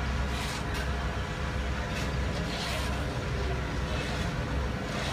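Rakes scraping over fresh asphalt a few times, over a steady low rumble.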